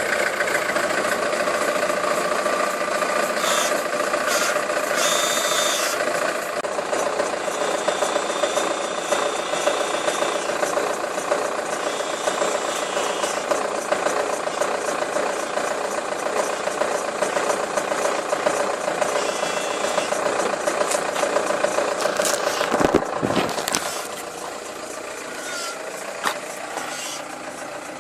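Opel Insignia all-wheel-drive automatic making a loud, steady humming noise with a constant tone, from the rear axle, with some rattling; it drops in level about 24 seconds in. The owner ties it to the car's repeated "check all-wheel drive / rear axle" warnings, a sign of trouble in the rear-axle drive.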